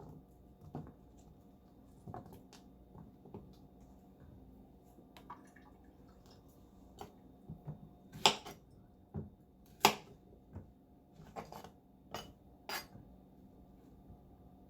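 Kitchen utensils clinking and tapping against dishes: a scatter of light clicks, with a handful of sharper clinks in the second half.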